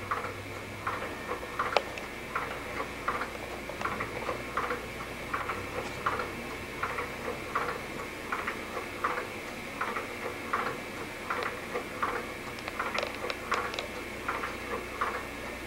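Battery-powered baby swing ticking steadily as it swings, a short click about every three-quarters of a second.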